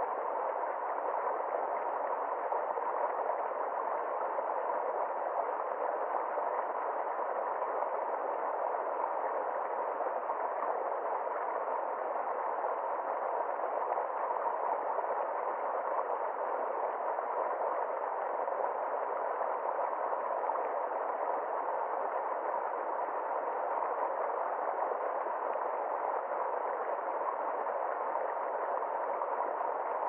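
Small stream cascading over rocks: a steady rush of water that stays even throughout, dull-sounding, with little deep rumble and little bright hiss.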